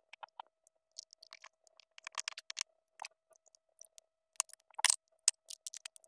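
Scattered small clicks and rattles of hard plastic being handled while a Bluetooth speaker is reassembled: wire connectors pushed onto its circuit board and the board seated in its plastic housing. The clicks come in loose clusters, busiest about two seconds in and just before five seconds.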